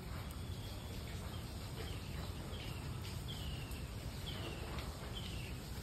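A small bird repeatedly giving short, high, falling chirps, about one a second, starting about two seconds in, over a steady low outdoor background rumble.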